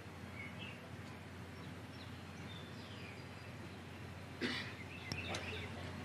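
Faint outdoor ambience: scattered short bird chirps over a steady low hum, with a brief sharp noise about four and a half seconds in.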